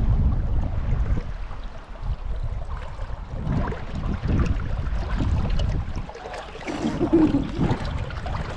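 River water rushing over rocks, with a heavy, uneven low rumble on the microphone.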